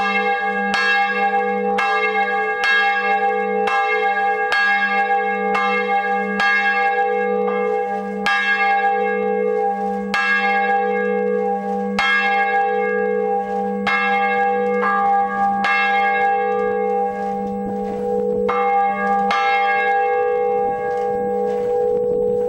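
Swinging bronze church bell from 1658, tuned to G#3, rung by its clapper about once every three-quarters of a second, each strike leaving a lasting ring. Near the end the strikes stop as the bell comes to rest, and its hum rings on.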